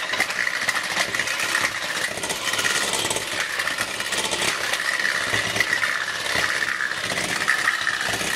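Electric hand mixer running with a steady motor whine, its beaters churning a runny cake batter of eggs, oil and cream cheese in a glass bowl.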